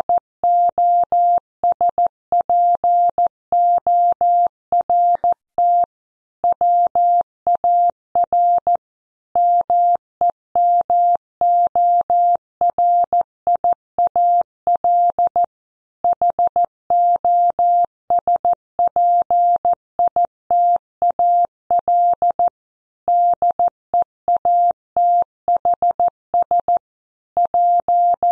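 Morse code played as a single steady beep switched on and off in short and long marks (dots and dashes) at 14 words per minute, with short pauses between words. It is a news headline sent by a Morse code practice website.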